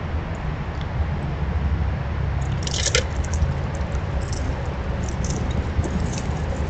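A black squirrel foraging in the wood chips right at the microphone: crunching and scratching with small clicks, loudest about three seconds in, over a steady low rumble.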